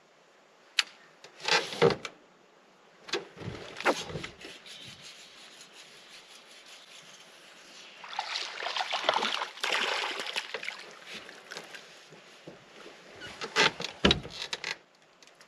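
Scattered knocks and thumps on a small fishing boat's hull. About eight seconds in comes some three seconds of splashing as a small hooked bass is brought to the surface, then more clicks and knocks as it is landed.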